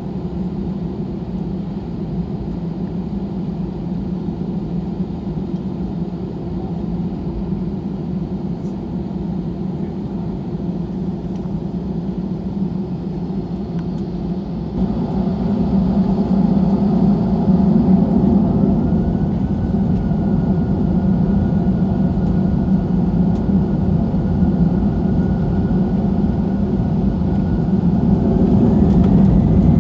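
Airbus A320-200 jet engines heard from inside the cabin by the wing, running steadily as the airliner taxis onto the runway. About halfway through the sound grows louder and a steady whine appears, and near the end the whine begins to rise in pitch as the engines spool up for takeoff.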